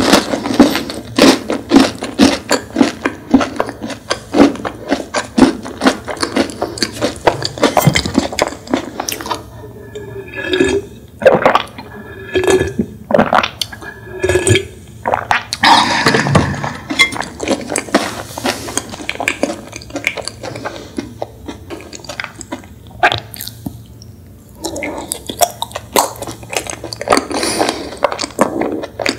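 Close-miked eating sounds: chewing and mouth clicks from a dessert, then several gulps of a drink from a plastic bottle around the middle, followed by more chewing and handling noises.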